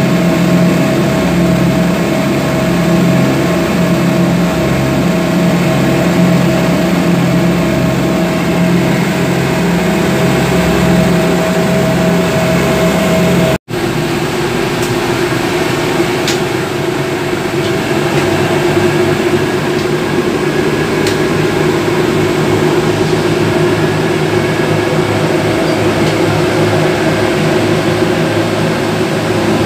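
Suzuki 250 HP four-stroke V6 outboard motors running a speedboat under way, a loud, steady engine drone over the rush of water and spray. The sound drops out for an instant about halfway through, and the engines' pitch settles lower afterwards.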